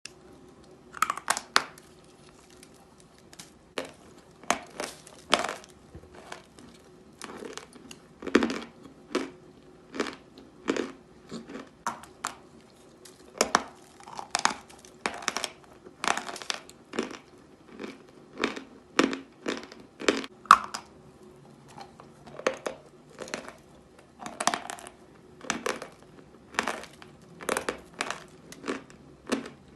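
Close-miked crunching of soft 'Belaya Gora' natural chalk, in short irregular crunches about one or two a second.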